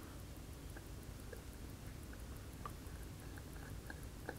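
Seagull ST3600 hand-wound watch movement ticking faintly and evenly at about five beats a second, its balance and escapement running. A few small, irregular clicks come from the steel screwdriver turning in the balance-cock screw, the sharpest one near the end.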